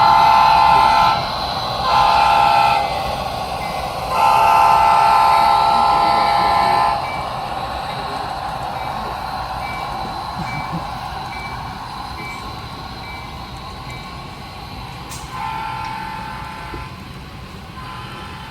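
Train horn sounding in separate chord blasts: a long blast, a short one, a longer one of about three seconds, then two fainter blasts near the end, over a steady running rumble.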